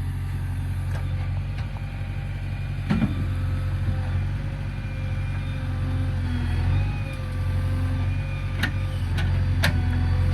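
JCB 3DX backhoe loader's diesel engine running steadily, with a few sharp knocks about three seconds in and twice near the end.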